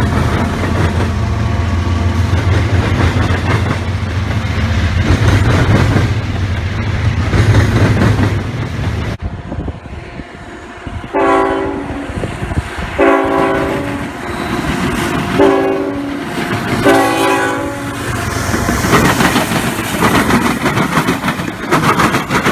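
A diesel freight locomotive passes close by with a loud, steady engine drone and wheels clattering over the rails. After that, an approaching CSX freight train's multi-chime horn sounds four blasts of about a second each. Its diesel locomotives then pass, with engine noise and rolling clatter.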